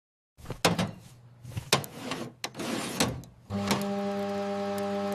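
Cartoon kitchen sound effects: a quick string of clicks, knocks and rustles, then a steady electric hum that starts about three and a half seconds in and holds at one pitch.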